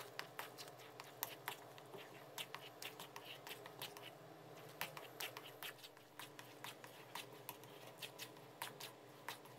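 Wooden paddle stirring a thick, sticky rice mixture in a metal wok: faint, irregular clicks and sticky smacks, several a second.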